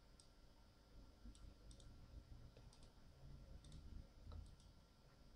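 Faint computer mouse clicks, a dozen or so spread out, several in quick pairs like double-clicks, over a low background hum.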